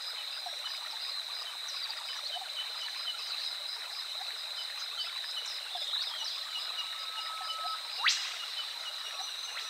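Rainforest nature soundscape: a steady wash of running water under a constant high-pitched drone and rows of quick repeated chirps, with scattered bird notes. About seven seconds in, a held whistle is followed by a sharp, fast-rising call, the loudest sound.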